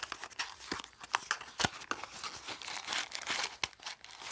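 A small cardboard blind box being opened by hand: its flaps bending and rubbing, and the wrapping inside crinkling, in a quick, uneven run of small crackles with a few sharper clicks.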